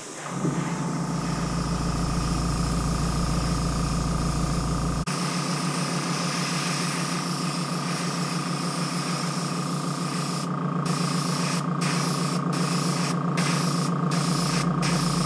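Airbrush compressor running steadily with the hiss of an airbrush spraying paint onto a 3D-printed model body. The spray hiss breaks off briefly about six times in the last five seconds as the trigger is let off, while the compressor hum keeps going.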